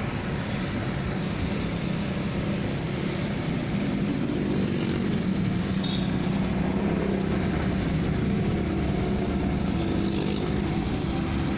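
Steady running of a motor vehicle: a continuous low engine hum with road noise.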